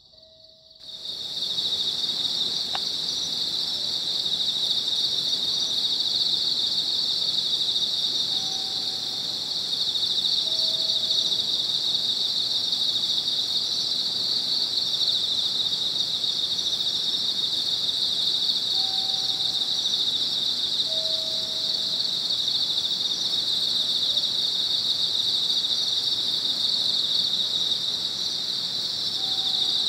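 Dense, steady chorus of night insects chirping, crickets by their sound, setting in about a second in. A faint two-note low tone repeats about every ten seconds.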